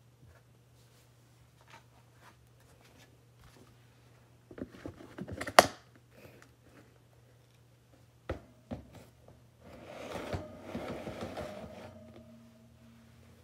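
Plastic storage tub being shut and moved: rustling and clicks, then the lid snaps on with one sharp, loud click about five and a half seconds in. Two more clicks follow as the lid's handles are set, then a longer scraping rustle as the tub is shifted away.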